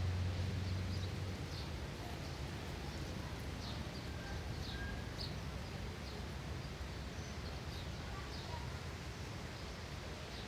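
Small birds chirping faintly and at irregular intervals over a steady outdoor background hiss. A low steady hum at the start stops about a second and a half in.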